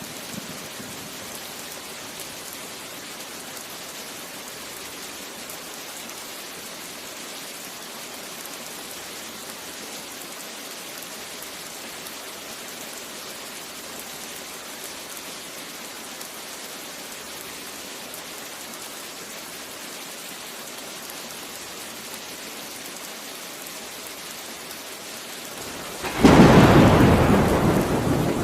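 Steady rain falling, then a sudden loud thunderclap near the end that rumbles on and slowly fades.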